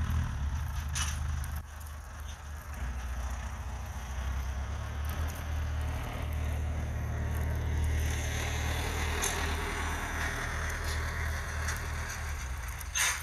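Snowstorm wind buffeting the microphone: a steady low rumble with a hiss over it, and a sharp click near the end.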